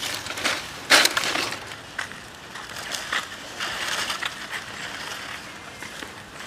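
Dry fallen leaves crunching and rustling as a macaque walks and rummages through the leaf litter, with a loud crunch about a second in and smaller rustles after it.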